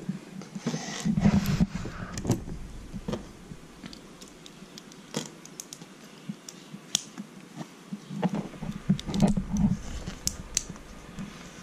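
Small plastic Lego pieces being handled and pressed together: scattered sharp clicks and light rattling.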